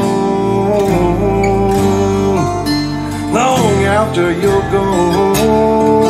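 Country song with acoustic guitar, playing over a home hi-fi system in a passage between sung lines.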